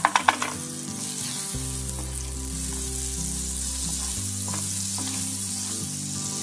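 Butter sizzling steadily as it melts and foams in a hot ridged grill pan, spread around with a wooden spatula. A few sharp taps of the spatula against the pan right at the start, and a couple of fainter ones later.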